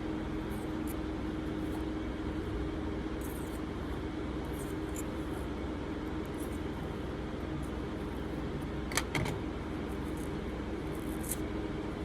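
Steady hum of two room fans, with faint small scratches and ticks as filler material is pulled out of a lighter's fuel chamber, and one sharper click about nine seconds in.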